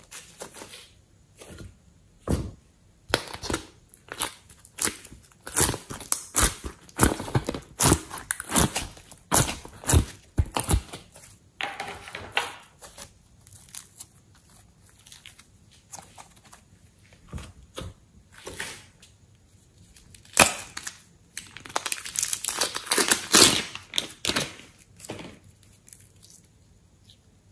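Hands squishing, folding and stretching sticky slime, making irregular wet clicks and pops. The sounds come thick in two busy stretches, with a quieter spell in the middle.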